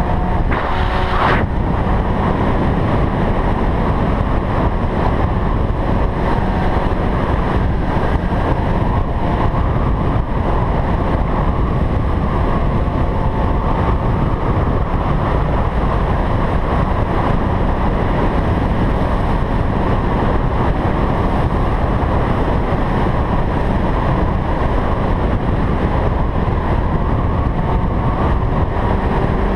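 Wind rushing over the camera microphone on a moving Honda CBR600RR, with the sport bike's inline-four engine faintly under it, rising in pitch a few times as it pulls. A sharp click about a second in.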